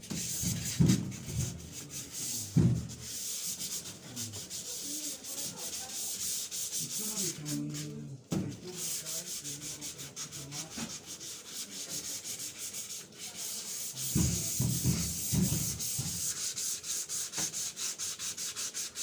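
Sandpaper rubbing over the sheet-metal casing of a washing machine in quick, even back-and-forth strokes, a steady rasping hiss that breaks off briefly about eight seconds in and stops at the end.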